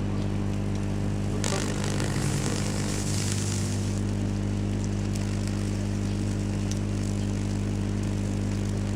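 Microwave-oven transformer powering a magnetron, humming steadily at mains frequency. A hissing, crackling burst joins it about one and a half seconds in and lasts about two seconds.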